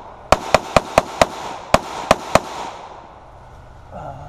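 Rifle with a Franklin Armory BSFIII binary trigger firing a rapid string: five shots at about four a second, a short pause, then three more, each shot followed by a short echo.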